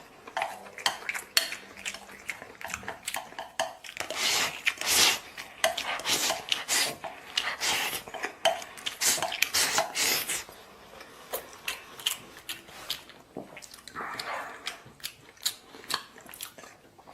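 Eating utensils clinking and scraping against a pot and bowl in quick, irregular strokes, busiest through the middle and sparser near the end.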